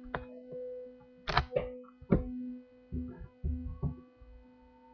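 A steady electrical hum with several short knocks and thuds scattered through it, a cluster of them about a second in, one around two seconds and several more near the end.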